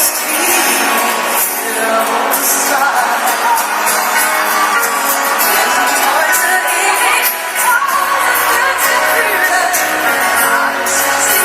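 Pop song with a singing voice over a full backing track, playing steadily.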